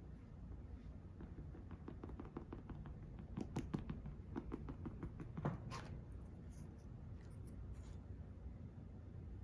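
A quick run of light clicks and taps from makeup items being handled, several a second, with a few louder clicks in the middle, then it stops about six seconds in, over a steady low hum.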